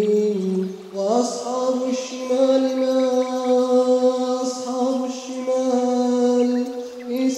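A male reciter chanting the Quran in a slow, drawn-out melodic line. The voice holds long notes and steps up in pitch about a second in.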